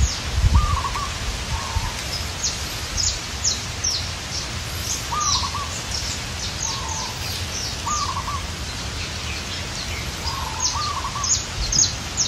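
Morning birds calling: quick high chirps that drop in pitch come again and again, and a lower warbling call of a few notes repeats every second or two, over a low steady rumble.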